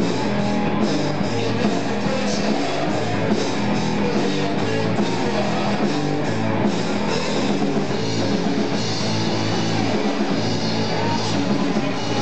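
Live rock band playing at a steady, loud level: electric guitar over bass and a drum kit with cymbals.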